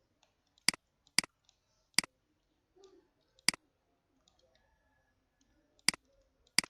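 Computer mouse button clicking, six sharp single clicks at irregular intervals.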